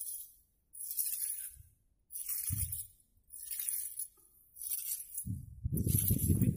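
Fishing net being hauled in hand over hand through grass: a rhythmic swishing rustle with a light jingle about once a second. A heavier rumble from handling comes in near the end.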